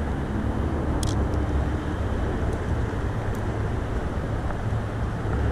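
Steady low rumble of road traffic on the highway overpass overhead, with a few faint short clicks.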